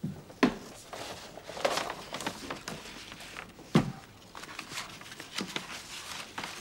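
A few sharp knocks and thuds, the loudest about half a second in and just before four seconds in, with shuffling and rustling in between, heard in a small room.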